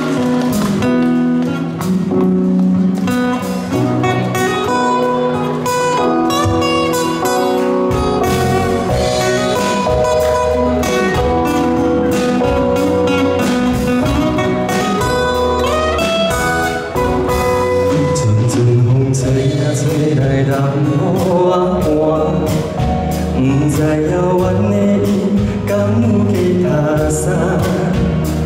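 Music: a song with guitar accompaniment and a singing voice, a bass line coming in about eight seconds in.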